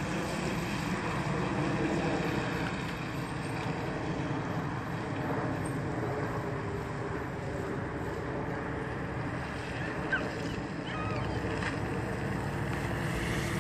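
Chevrolet Impala SS driving slowly toward the listener, its engine running low and steady under a constant hiss of outdoor noise. The low rumble grows a little heavier near the end as the car comes close.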